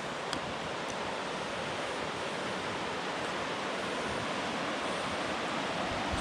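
Steady rushing of water over small river rapids, an even continuous hiss, with a faint tick near the start.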